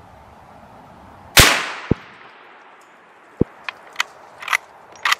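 A single rifle shot from a Ruger American Ranch bolt-action rifle in .350 Legend about a second and a half in, followed half a second later by one short sharp knock. Near the end comes a run of metallic clicks and clacks as the bolt is worked to chamber the next round.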